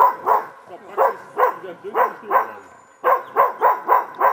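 Hunting dog barking repeatedly: short barks in spaced pairs, then a quicker run of about four barks a second near the end.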